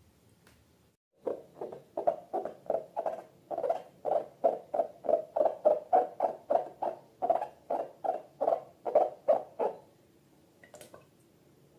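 Slime squelching as it is squeezed and kneaded by hand, in a quick even rhythm of about three squishes a second. It starts about a second in and stops near the end.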